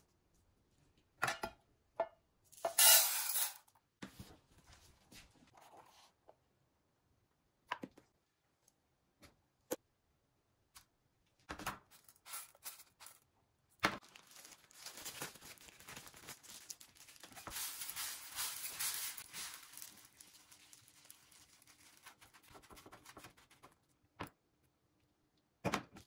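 Uncooked rice scooped with a plastic measuring cup from a plastic storage bin, with a loud pour of grains about three seconds in, then scattered light clicks and knocks. From about halfway the rice rattles and shifts in an aluminium mess tin for several seconds.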